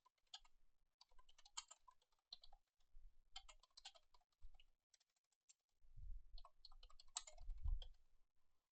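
Faint computer keyboard typing in irregular runs of keystrokes, with a couple of low thumps in the second half.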